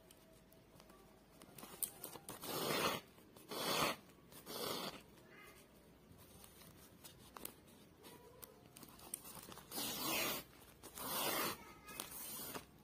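Embroidery yarn being drawn with a needle through woven plastic sack fabric: six short scratchy pulls of about half a second each, three close together a few seconds in and three more near the end.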